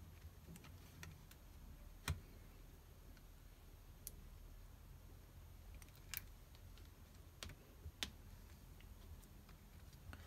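Faint, scattered small clicks and taps of a Raspberry Pi circuit board and a 3D-printed plastic case being handled and pressed together, the sharpest click about two seconds in.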